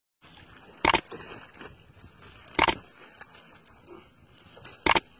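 Three sharp mouse-click sound effects from a like-and-subscribe button animation, each a quick double click, about two seconds apart, over faint background noise.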